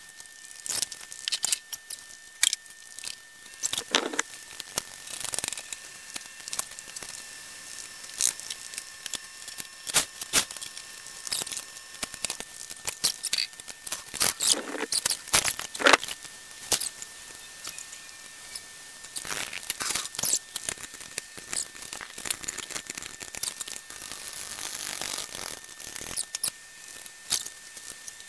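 Irregular metallic clicks, knocks and rattles of hand work with an engine hoist and its lifting chain as a heavy lathe threading attachment is hoisted and set down. A faint steady high whine runs underneath.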